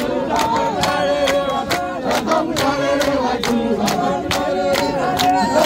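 A congregation singing a hymn together, many voices in parts, with hand claps keeping the beat about twice a second.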